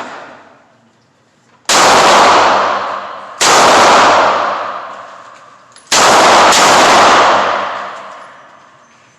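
Four loud gunshots fired at a shooting range, uneven in spacing: two about a second and a half apart, then two in quick succession, each followed by a long echoing decay.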